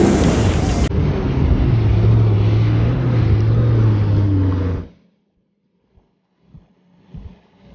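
Jet ski engine running with rushing wind and water noise, a steady low drone, cut off abruptly about five seconds in. A few faint low thumps follow in near quiet.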